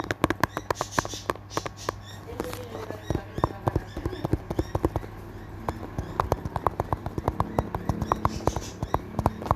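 Fingers tapping and clicking in rapid, irregular clicks, several a second, thinning out in the middle and picking up again later, over a steady low hum.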